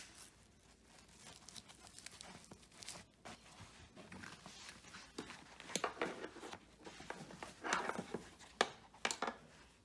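Hands handling and rubbing over a tool backpack's nylon fabric and webbing strap: faint rustling and scuffing, with a few louder rubs in the second half.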